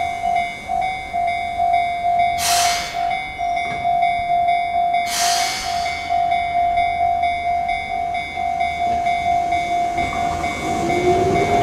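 Japanese level crossing alarm ringing, a single electronic ding repeating two to three times a second, with two short hisses of released air from the waiting train about two and a half and five seconds in. Near the end the Keihan 600 series train pulls away, its motor whine rising and the running noise growing.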